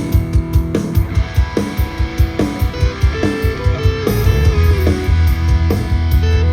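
Rock band playing live: electric guitar chords over bass and a steady drum beat, with no vocals. The low end grows heavier about four seconds in.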